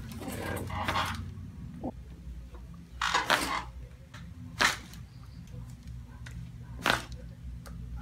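Neck joints cracking during chiropractic neck adjustments: two short, sharp pops, about four and a half and seven seconds in, with softer rustling before them over a low hum.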